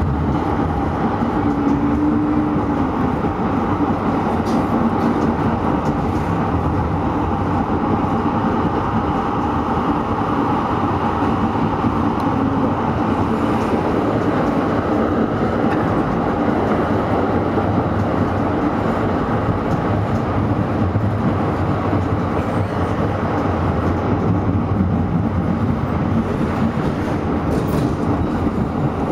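Düwag TW6000 tram running at steady speed, heard from inside the car: a continuous, even running noise with no breaks.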